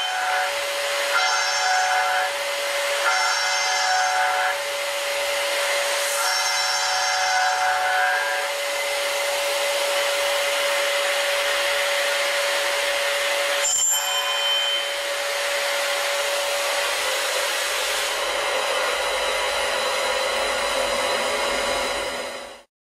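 End mill trochoidal-milling a titanium blisk on a CNC machining centre, over a steady hiss of through-tool liquid-nitrogen and MQL coolant and a steady whine. Ringing tones come and go several times in the first half as the cutter engages the metal, and there is a sharp click about halfway. The sound cuts off suddenly just before the end.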